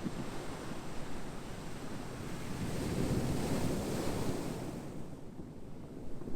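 Ocean surf: a wave builds with a rising hiss to a peak about three to four seconds in, then washes back and fades.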